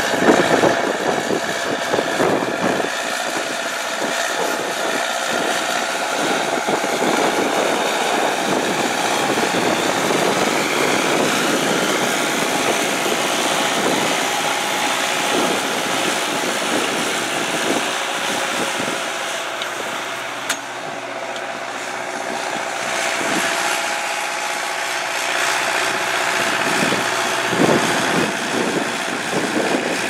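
Marshall 802 tractor's diesel engine running steadily under load as it pulls a plough through stubble.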